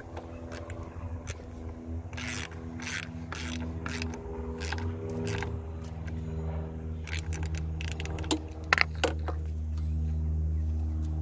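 Metal clicks and scraping of a wrench tightening the 10 mm nut on a car battery's terminal clamp as the battery is reconnected, over a steady low hum.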